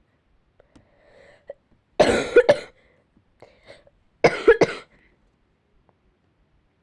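A girl who is ill with a cold coughing in two short bouts, about two seconds apart, with two or three quick coughs in each.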